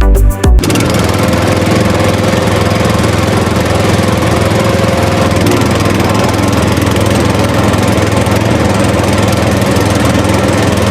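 A small motor running steadily at an even speed, with a low hum under a broad mechanical whirr.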